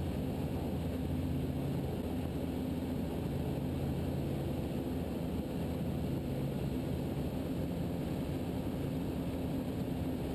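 Ikarus C42 microlight's engine and propeller running steadily in flight, heard through the headset intercom feed as a muffled, even drone.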